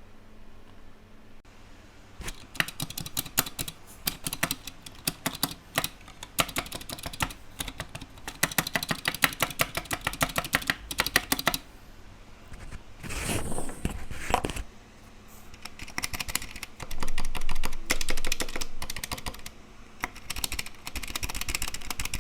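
Typing on a full-metal mechanical keyboard with Gateron Silent White silent linear switches: fast, soft key clicks in rapid runs. About halfway through, the typing gives way to a brief rushing noise before it resumes.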